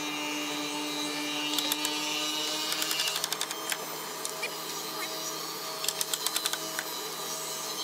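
A wooden block knocked quickly against the edges of tongue-and-groove boards to drive them together, in three short runs of sharp taps, with a steady machine hum underneath.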